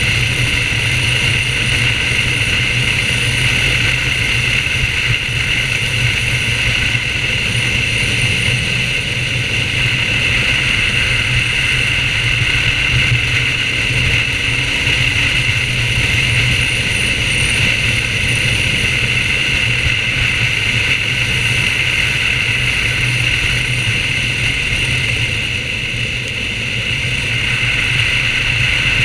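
BMW R1200GS motorcycle's boxer-twin engine running at a steady cruise, mixed with wind and road noise on a bike-mounted camera. It eases off briefly near the end.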